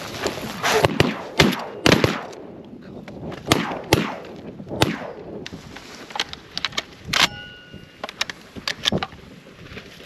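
A volley of shotgun shots from several duck hunters firing together, about a dozen sharp reports in the first five seconds, each ringing out. Fewer, fainter shots and cracks follow later.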